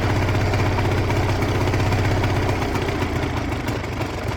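Two-stroke engine of a Quicksilver ultralight aircraft running on choke just after catching, a steady low pulsing. Its level sags near the end as it starts to die.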